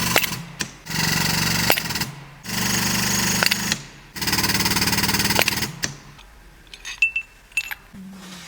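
Pneumatic impact wrench run in four short bursts of rapid hammering, the kind used on hub and suspension bolts. A few sharp metallic clicks follow near the end.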